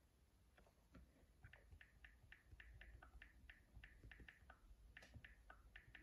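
Near silence with faint, light clicks, irregular at about three or four a second.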